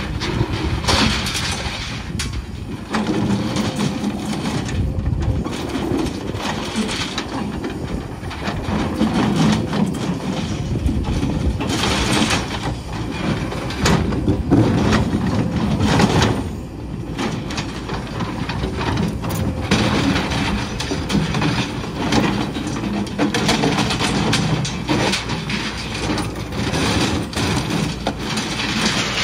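Kobelco crawler excavator running, its diesel engine and hydraulics working steadily while the bucket scrapes and knocks through broken concrete and rebar, with repeated clatters and clanks.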